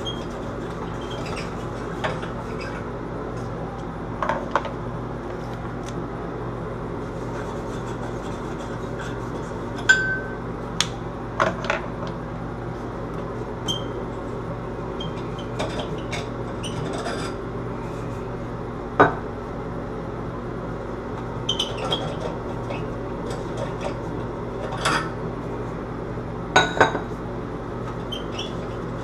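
Glass shades and bulbs being unscrewed and lifted off a bathroom vanity light bar: scattered sharp clinks and knocks of glass and metal, over a steady low hum.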